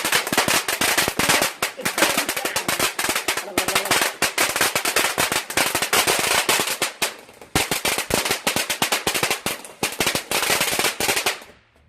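A consumer firework going off in a rapid string of sharp crackles and bangs, many a second, with a brief pause about seven seconds in, then cutting off just before the end.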